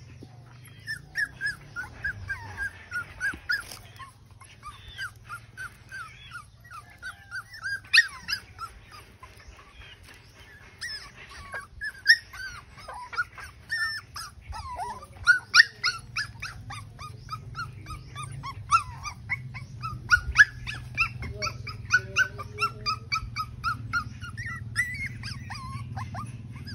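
Puppy whimpering: runs of short, high squeaks, several a second, with brief breaks between the runs.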